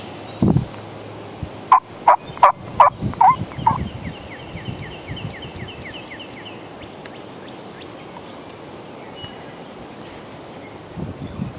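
Wild turkey calling: a loud series of about six short notes, starting about two seconds in. A low thump comes just before it.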